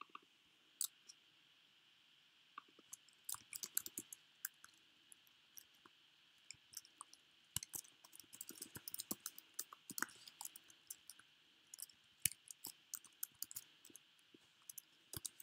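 Quiet computer keyboard typing and mouse clicks: irregular sharp key taps and clicks coming in clusters, over a faint steady hiss.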